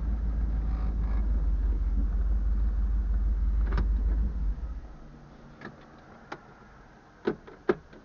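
Car engine idling, heard inside the cabin as a steady low rumble, then switched off about four and a half seconds in. A few sharp clicks follow in the quiet.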